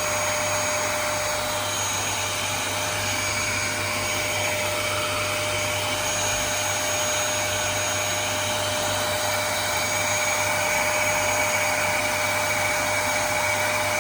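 Vacuum cleaner running steadily: a constant rushing hiss with a steady whine through it.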